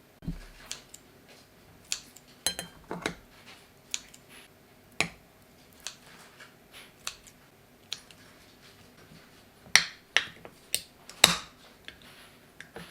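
Irregular light clicks, taps and knocks of small hard objects being handled, with a quick rattle of clicks about two and a half seconds in and the loudest knocks near the end.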